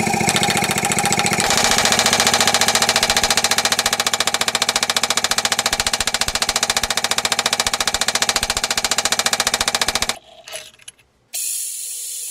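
Power hammer striking a red-hot 1070/15N20 damascus billet in a fast, even run of blows, which stop suddenly about ten seconds in. Near the end a drill press bores into the steel bar with a steady hiss.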